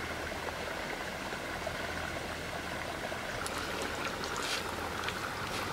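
Steady background hiss, with a few faint soft clicks about three and a half and four and a half seconds in from fingers rubbing turmeric into raw fish pieces on a steel plate.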